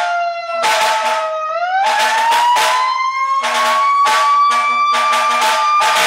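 Fire truck siren wailing, its pitch sagging, then climbing steadily from about a second and a half in. A rapid run of short, loud horn blasts with brief gaps sounds over it.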